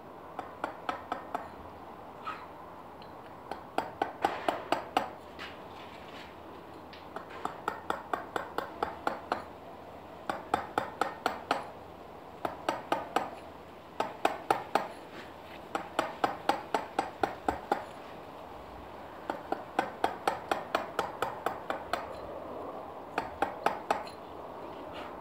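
A chisel struck with a mallet, cutting into limestone: quick runs of sharp clinking taps, about four to five a second, in bursts of a few seconds with short pauses between.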